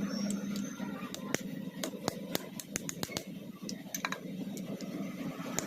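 Irregular light, sharp clicks and taps, several a second at times, over a steady low hum.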